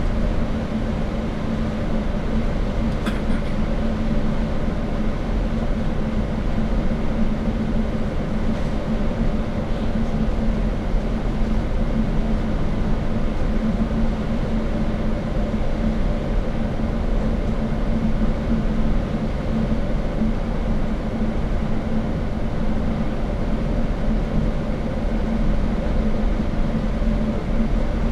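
Steady drone of engine and tyre noise inside a moving Hong Kong–Zhuhai–Macau Bridge shuttle bus, with a constant low hum under it.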